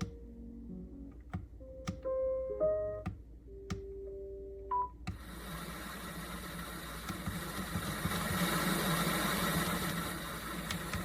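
Alarm clock sound machine: several sharp button clicks with short electronic tones at different pitches, then about five seconds in a steady white-noise hiss switches on suddenly and keeps running.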